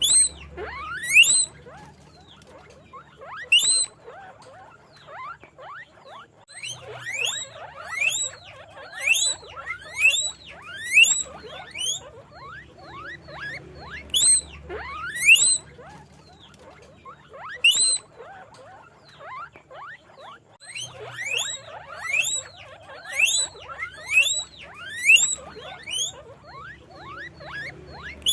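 Guinea pig wheeking: short, sharply rising squeals repeated in quick bouts, with brief pauses between the bouts.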